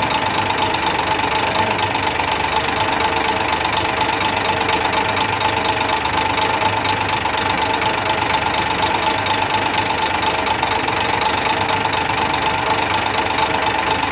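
Six-cylinder engine idling steadily with a knock, run while its injectors are cut out one cylinder at a time to find the faulty ones.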